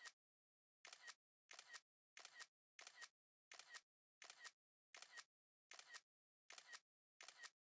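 iPhone camera shutter sound effect, played over and over about once every 0.7 seconds: each is a quick two-part click, with dead silence between them.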